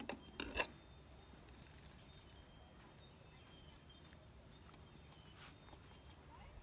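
Quiet outdoor background with a brief rustle or knock about half a second in, then a few faint, short, high chirps.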